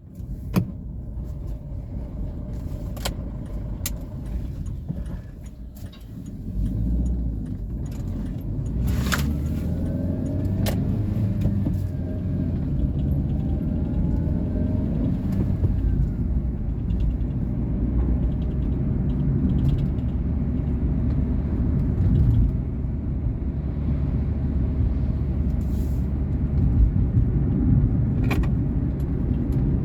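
Volkswagen Polo Vivo driving: a steady low engine and road rumble that grows louder about six seconds in as the car pulls away, with rising engine pitch around ten seconds and a few sharp clicks.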